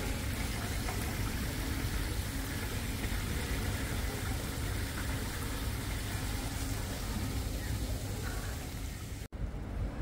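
Steady indoor ambience of water running through a rock-lined atrium stream and pond, with a faint murmur of voices. It cuts off abruptly about nine seconds in and gives way to a different steady background.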